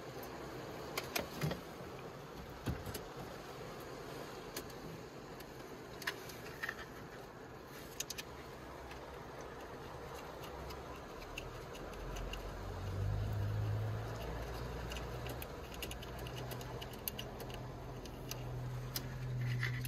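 Scattered light clicks and rattles of hands handling a car stereo's bracket, screws and wiring plugs over a steady background hiss. A low hum comes in about two-thirds of the way through.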